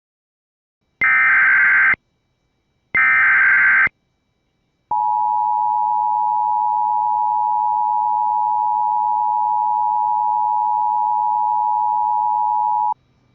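Emergency Alert System signal: two short bursts of the SAME digital header, a harsh warbling screech, then the two-tone EAS attention signal held steady for about eight seconds before cutting off suddenly.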